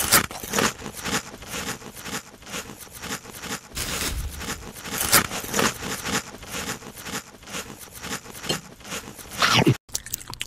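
Close crunching and crackling: a dense, continuous run of crisp snaps and scrapes, typical of crunchy food being bitten and chewed. The sound breaks off briefly near the end.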